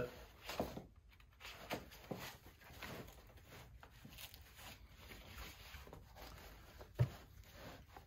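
Soft rustling and handling noise of nylon pack fabric and webbing straps as a rucksack frame and harness are worked by hand, with one sharp knock about seven seconds in.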